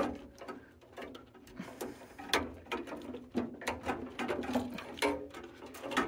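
Hands fishing a replacement mixing valve and its wire bundle into a tankless water heater's cabinet: irregular light clicks, taps and rustles of plastic connectors, wires and sheet-metal parts.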